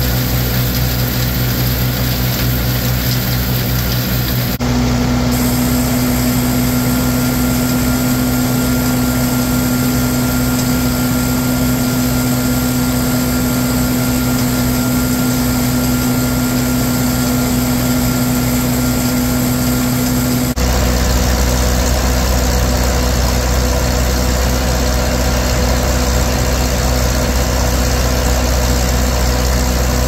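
Case 830 tractor running at a steady speed to drive a Gehl silo blower, with chopped corn being fed into the blower's hopper from a chopper box. A continuous mechanical drone with a low hum, changing abruptly in tone twice, about four and a half and twenty seconds in.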